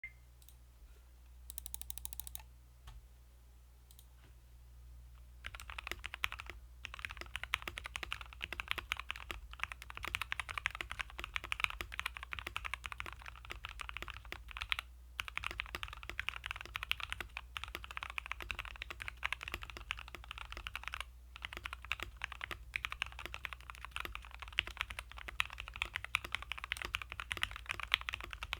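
Rakk Lam-Ang Pro mechanical keyboard being typed on fast and continuously, its lubed and filmed Gateron KS-3 Black linear switches under PBT XDA keycaps, from about five seconds in, with a couple of brief pauses. A steady low hum runs underneath, picked up through a headset microphone.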